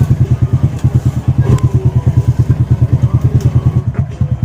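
Honda XRM 125's single-cylinder four-stroke engine running steadily at low revs through an aftermarket power pipe exhaust. It makes an even, rapid putt-putt of about nine exhaust pulses a second.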